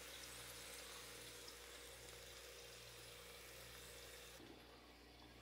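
Near silence: a faint steady hiss over a low hum, with the upper part of the hiss dropping away about four seconds in.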